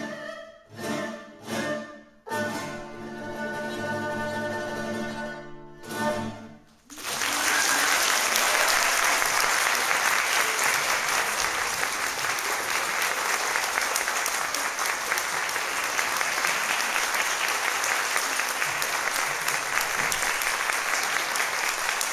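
Erhu and two classical guitars playing the closing chords of a piece: a few short accented chords, a long held chord and a last short one. Then an audience applauds steadily from about seven seconds in.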